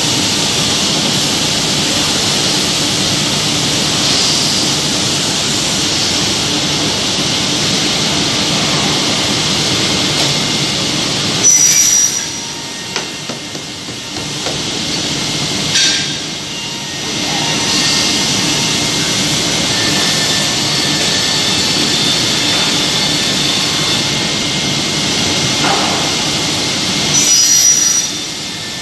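Anderson PTP-5013 CNC point-to-point boring centre running: a loud steady mechanical noise with a low hum. Sharp short hisses or knocks come about 11 and 27 seconds in, and it goes quieter for a few seconds around 12 to 17 seconds in.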